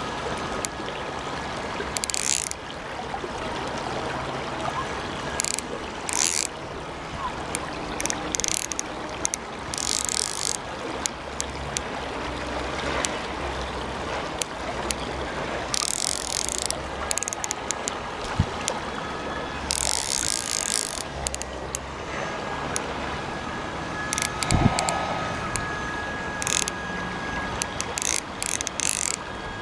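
Hardy Ultralite CC 1000 fly reel ratcheting in repeated short bursts of clicking while a hooked chub is played on a light 2-weight rod. A steady rush of shallow river water runs underneath, with one dull thump about three quarters of the way through.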